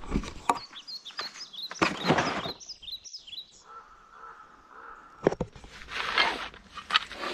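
Small birds chirping in quick series, with a few close rustling and crunching noises and a couple of sharp clicks.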